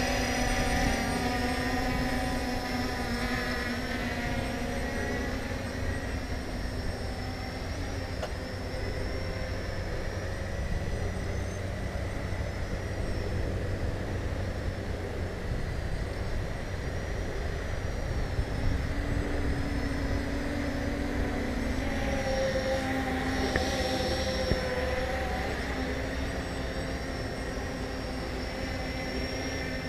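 Ao Sen Ma CG035 quadcopter's brushless motors and propellers whining in flight, several tones shifting in pitch as it manoeuvres, louder near the start and again about two-thirds in. A steady low rumble of wind on the microphone runs underneath.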